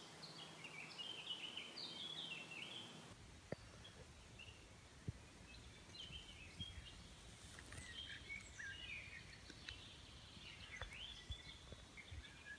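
Faint songbirds chirping and singing in woodland. From about three seconds in, a low background rumble rises beneath them, with a few soft clicks.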